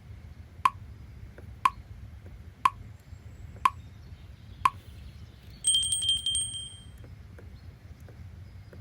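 Study-timer alarm: five short ticks a second apart, then a ringing alarm of rapid bell-like strikes lasting about a second, over steady low background noise.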